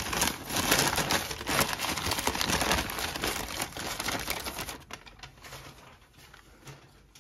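Crumpled newspaper packing rustling and crackling as it is pulled open and unwrapped from around a plastic box. The crackling is dense for about five seconds, then thins and dies away.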